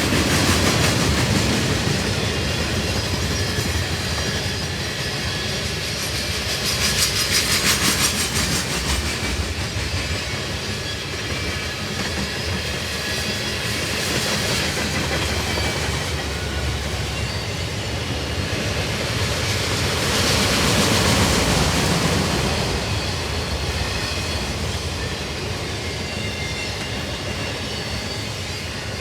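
Cars of a long freight train rolling past, steel wheels clattering over the rail joints over a steady rumble and hiss. The noise swells about eight seconds in and again around twenty-one seconds in.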